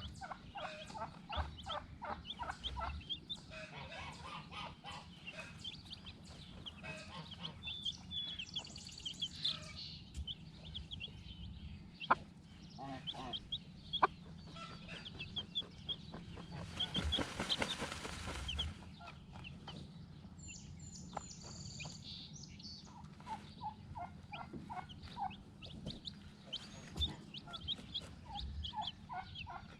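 A poultry flock clucking and calling in many short repeated notes, over a steady low hum. There are two sharp clicks near the middle, and a rush of noise lasting about a second and a half shortly after.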